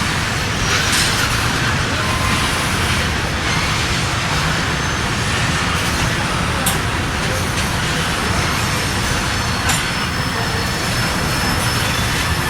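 A Norfolk Southern train's cars rolling past with a steady rumble, a faint high wheel squeal, and a couple of sharp clicks from the wheels on the rail.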